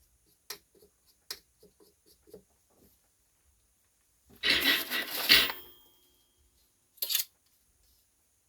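Small objects being handled at a work table: a few light clicks and taps, then a louder rustling scrape lasting about a second and a half, about four and a half seconds in, and a short one near the seven-second mark.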